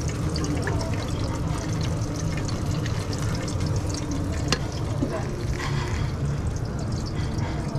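Food frying in a commercial kitchen: a steady sizzle over a constant low hum, with one sharp clink about four and a half seconds in.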